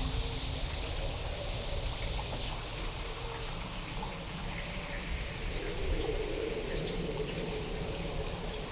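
Steady rain falling over a continuous low rumble, sound-designed to seem otherworldly, with a few faint pitched tones drifting in and out.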